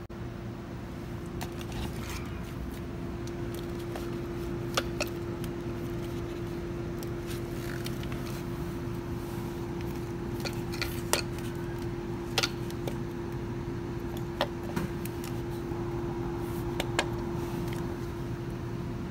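Scattered light metal clinks and taps over a steady hum, typical of tools and screws being handled while an air-conditioner outdoor unit's fan motor is taken apart.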